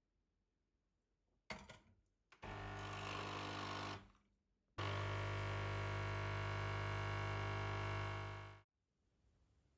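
A small electric motor runs twice with a steady, unchanging hum: about a second and a half, then after a short pause about four seconds, each time starting and stopping abruptly.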